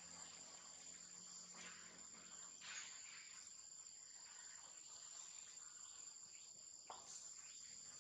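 Faint, steady high-pitched insect drone, with a few brief soft rustles, one about a third of the way in and another near the end.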